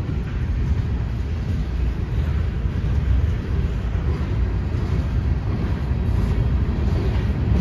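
Freight cars rolling past on the rails: a refrigerated boxcar, a tank car and covered hoppers, making a steady low rumble.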